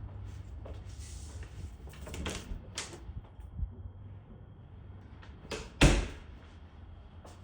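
A door being opened and shut, with a couple of sharp latch clicks and then one loud thump as it closes, about six seconds in.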